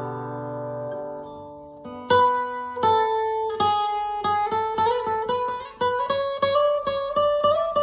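Alvarez Masterworks MD90 dreadnought acoustic guitar: a strummed chord rings out and fades, then after a short pause single notes are picked in a quick, even rhythm, the melody slowly climbing.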